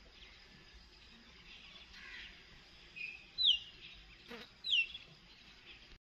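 A bird gives two loud, clear whistled calls a little over a second apart, each sliding down in pitch, after a short softer note. Behind them runs a faint, steady high chirping, with a soft short knock between the two whistles.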